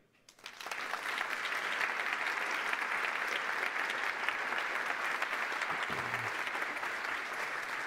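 Audience applauding: the clapping starts about half a second in, swells within the first second and then holds steady.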